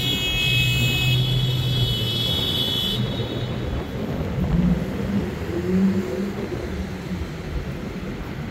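Road traffic: car engines running and passing on a city street, with a steady low hum. A high-pitched whine sits over the traffic and stops about three seconds in.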